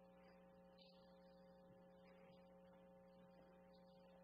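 Near silence: a faint, steady electrical hum, likely mains hum from the sound system.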